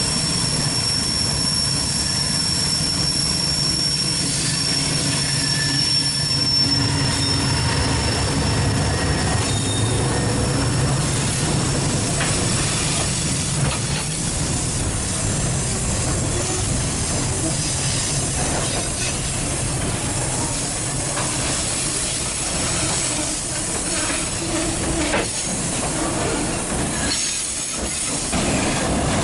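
Freight train rolling past, its steel wheels squealing against the rails as a thin, steady high squeal in the first several seconds. Underneath runs a continuous low rumble with the clatter of the wagons.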